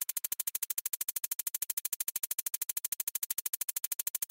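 Synthesized electronic pulsing: a fast, perfectly even stutter of about a dozen beats a second that stops abruptly.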